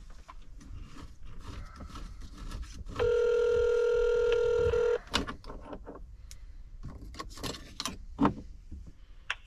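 Telephone ringing tone heard through a phone's speaker while the call waits to be answered: a single steady ring of about two seconds, starting about three seconds in. Scattered light clicks and knocks come before and after it.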